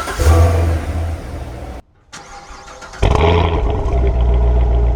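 The 6.2L LT1 V8 of a 2017 Corvette Stingray running loud through its exhaust, in two edited clips. The first swells just after the start and cuts off sharply a little under two seconds in. After a brief gap, the engine jumps loud again about three seconds in and holds steady, like a start-up flare settling into a fast idle.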